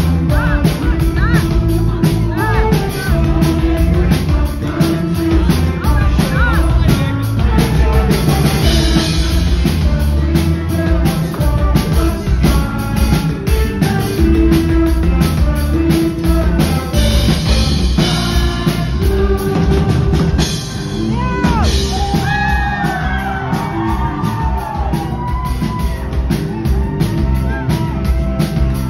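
Live rock band playing loud: a drum kit keeps a steady beat under electric guitars, bass and synth keyboard. About two-thirds of the way in, a lead line that bends up and down in pitch comes forward.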